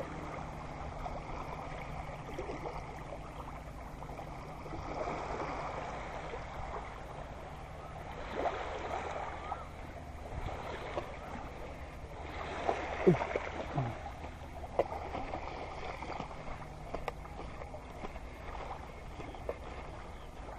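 Small waves lapping on a sandy shore, the wash swelling and fading every few seconds, over a low steady hum.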